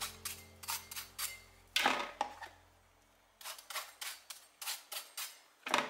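Chef's knife scoring the flesh of a halved, peeled eggplant held in the hand: a run of quick, crisp little cuts, with a louder knock about two seconds in and again near the end.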